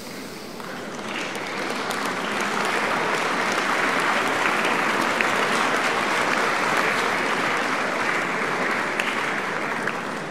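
Audience applauding: a dense patter of many hands clapping that swells over the first two or three seconds, holds, and fades near the end.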